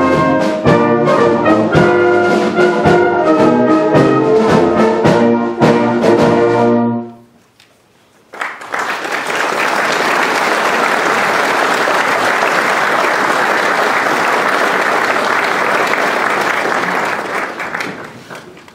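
A brass ensemble plays the closing bars of a piece, ending on a held chord about seven seconds in. After a short pause an audience applauds for about nine seconds, and the clapping dies away near the end.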